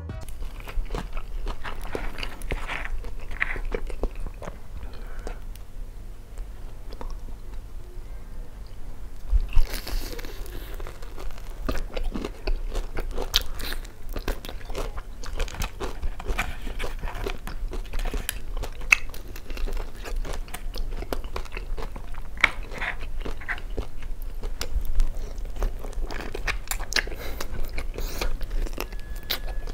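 Biting and chewing crispy fried chicken (Jollibee Chickenjoy), the breaded skin crunching and crackling in quick, uneven bites over a steady low hum.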